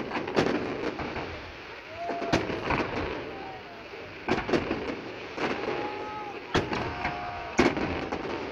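Aerial fireworks shells bursting: about ten booms and cracks at uneven intervals, several coming in close pairs.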